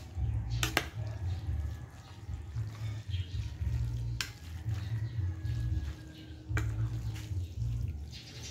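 Metal spoon and fork tossing spaghetti through sauce in a glass baking dish: soft wet stirring with a few sharp clinks of metal against the glass.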